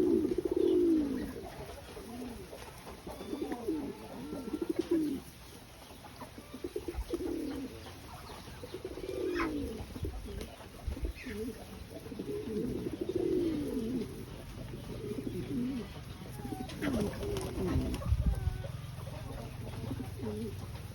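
Domestic pigeons cooing in repeated, overlapping bouts of low, rolling coos, with a few low thumps near the end.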